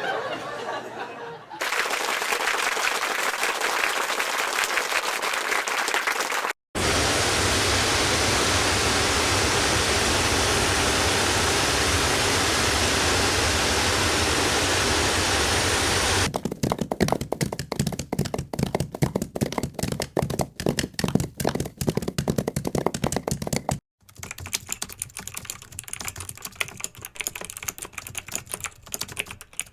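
A run of separate sound-effect clips, each cut off abruptly: a fast dense patter for about five seconds, then a steady loud hiss of noise for about ten seconds, then rapid clicking of keyboard typing that stops briefly and resumes near the end.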